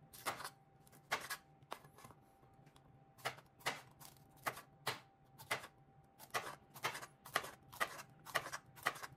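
Broad-bladed kitchen knife slicing bell peppers into thin strips, its edge tapping on a stainless steel cutting board with each cut: a few scattered taps at first, then a steady run of about two a second.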